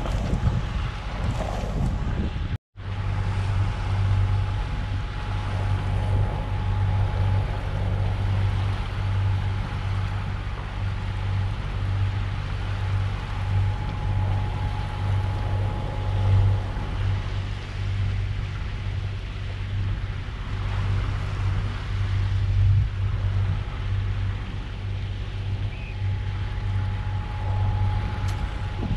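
Sailing yacht under engine on calm water: the inboard diesel drones steadily and low, with water and wind noise over it. The sound cuts out for a moment about three seconds in, and the engine drone is loud and even after that.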